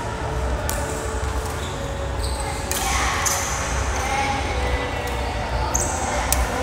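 Badminton rally: sharp pops of rackets striking a shuttlecock, about six in a few seconds, echoing in a large hall over a steady low rumble.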